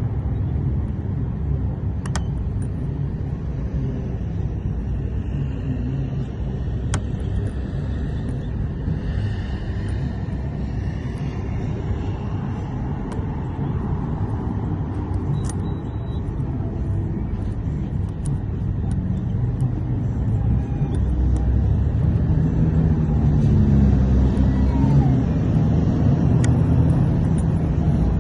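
Steady low rumble of vehicle engines and road traffic, growing louder in the second half, with a few light sharp clicks of tools working a sticky car door lock.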